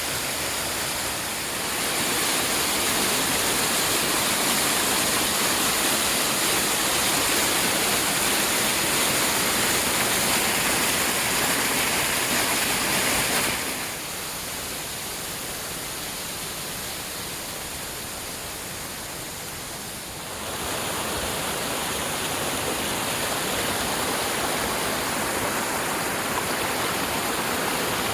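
Steady rush of fast-flowing floodwater from rain runoff, a constant roar that grows louder about two seconds in, dips for several seconds in the middle, then comes back up.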